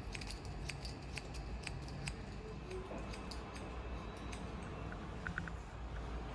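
Hikari hairdressing scissors snipping through hair: crisp, irregular snips a few times a second, over a low steady hum.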